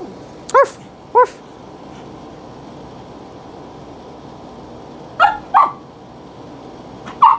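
A pug barking: five short, high barks, two close together about half a second in, two more about five seconds in, and one near the end.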